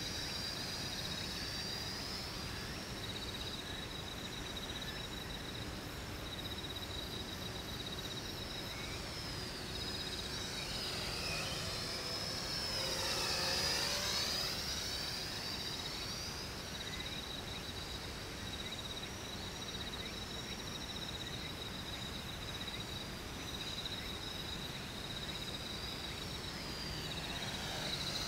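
X400 quadcopter's small electric motors and propellers buzzing in flight, growing loudest about halfway through as it passes close and its pitch sweeps down and back up.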